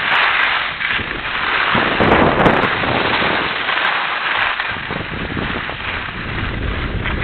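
Wind buffeting the camera's microphone while riding downhill, mixed with the crackling scrape of a board or skis sliding over hard, groomed snow; the noise surges about two seconds in.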